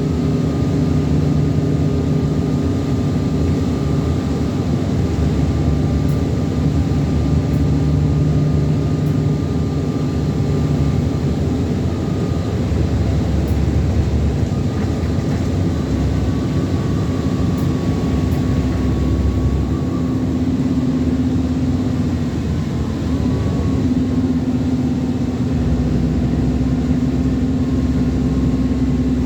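ADL Enviro400 Trident double-decker bus running on the road, heard from on board: a steady diesel engine drone that changes pitch a few times, with a thin high whine over it.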